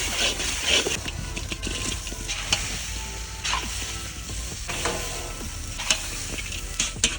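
Garlic paste, ketchup, soy sauce and spices sizzling in hot oil in a pan while being stirred with a spatula. Scattered sharp clicks and scrapes of the spatula against the pan sound over a steady hiss.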